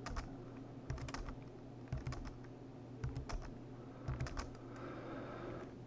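Computer keyboard keys pressed in quick pairs about once a second, faint, over a low steady hum. The keystrokes accept code autocomplete suggestions line by line.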